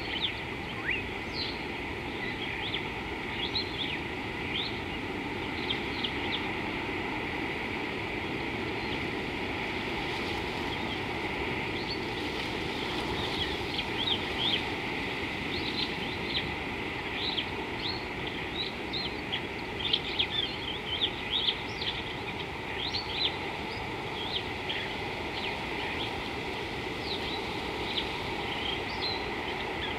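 Birds chirping, many short quick calls scattered over a steady outdoor hiss.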